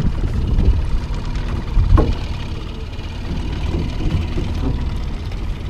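Uneven low rumble of wind buffeting the microphone while a fish is landed in a landing net, with a single sharp knock about two seconds in.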